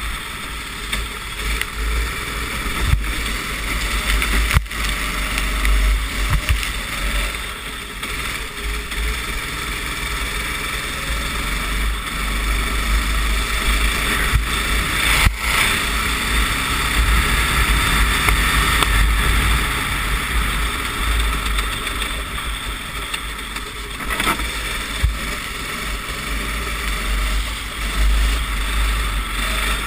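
Racing kart engine running at speed under an onboard camera, its note swelling and easing through corners, with heavy wind rumble on the microphone. There are a few sharp knocks, the loudest about fifteen seconds in.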